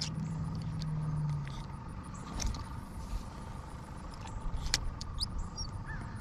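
Low steady hum of a motor vehicle that fades out about a second and a half in. After it come a few light clicks from a spinning reel being handled, and a couple of short bird chirps near the end.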